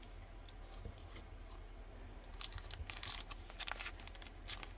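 Thin clear plastic bag crinkling as a coin in its plastic capsule is handled inside it: faint, irregular crackles that grow busier about halfway through, with one louder crinkle near the end.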